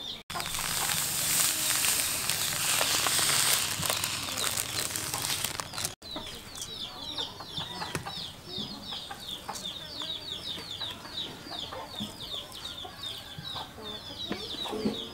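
For the first six seconds, a loud rustling hiss. After that, chickens cheeping steadily: a quick run of short, high chirps, about three a second.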